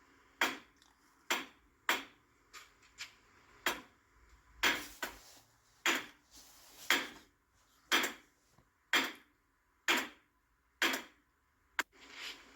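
Steel hammer blows on a punch held against the end of a BMW X5's front axle shaft, about one blow a second, each a sharp metallic strike that rings briefly. The axle is seized in the wheel bearing's splines.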